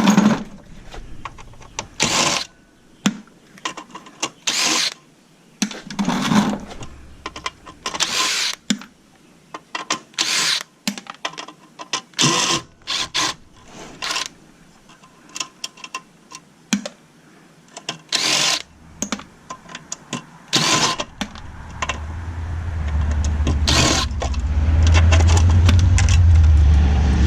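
Scattered knocks, clicks and clanks of metal parts and screws being handled as a steel-and-aluminum equipment case is taken apart. Near the end a low engine rumble comes in and grows loud.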